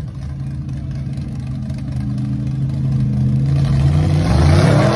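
Monster truck's engine running under load as it crawls over a car in deep mud. It grows steadily louder and revs up, rising in pitch, over the last second and a half.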